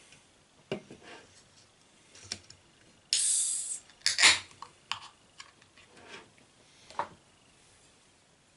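Aluminium beer can of session IPA being opened by its ring-pull: a hiss of escaping gas about three seconds in, then a louder sharp burst just after as the tab opens. Light knocks and taps from handling the can and glass come before and after.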